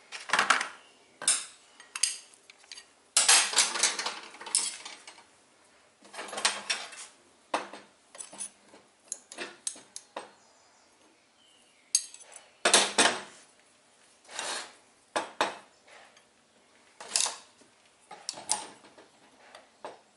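Pliers and steel rods clinking and clattering against each other and a metal workbench as they are handled, in irregular bursts of sharp metallic clicks with short pauses between.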